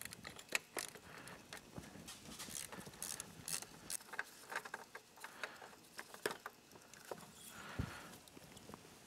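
Faint, irregular clicks and taps of an oil filter wrench and a spin-on oil filter being loosened and unscrewed by hand.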